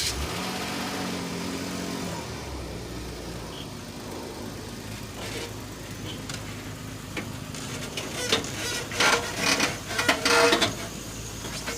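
A motor vehicle engine running steadily. A run of sharp knocks and clatter comes about eight to ten seconds in.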